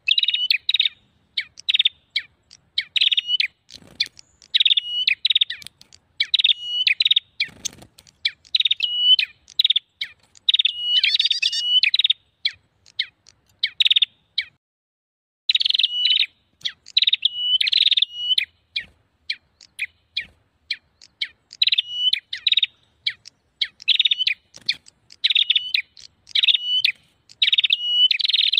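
Prenjak birds calling noisily in a lure-call recording, meant to draw wild prenjak in. The calls are rapid, sharp chirping phrases repeated one to two a second, with a brief break about halfway through.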